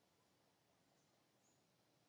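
Near silence: a faint steady background hiss, with two very faint short high chirps about a second and a second and a half in.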